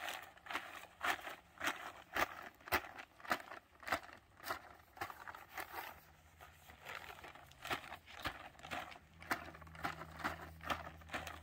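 Plastic bag crinkling and rustling in short strokes, two or three a second, as it is rubbed over a horse's neck, back and flank to get the bag-shy horse used to it.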